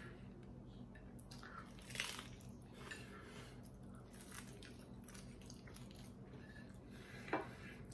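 Crisp hard-shell taco being bitten and chewed: faint crunching, with two sharper cracks about two seconds in and near the end.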